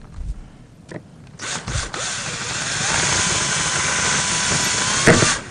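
A power drill/driver runs steadily for about three seconds with a faint whine, driving a small screw into the center of a fabric panel insert. A few short handling clicks come before it starts.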